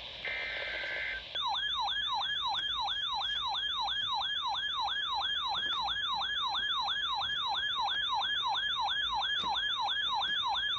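Emergency Alert System alert over the radio: a short burst of the two-pitch SAME data header near the start, then a siren-like attention tone. The tone is a rapidly repeating falling sweep, about three a second, held at an even level for about ten seconds before cutting off.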